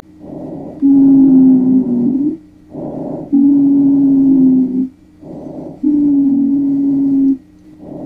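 Expiratory wheezing heard through a stethoscope, over about three breaths. Each breath is a short, quieter rush of breath in, then a longer, louder breath out carrying a steady, low, musical tone that dips slightly at its end. Such a wheeze is a sign of narrowed airways.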